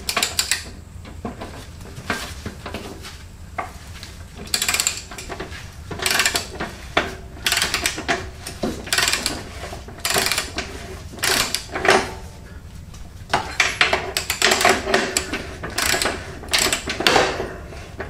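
Socket wrench ratchet clicking in short runs of back-and-forth strokes as a motorcycle's 22 mm rear axle bolt is wound loose, with an occasional knock of metal on metal.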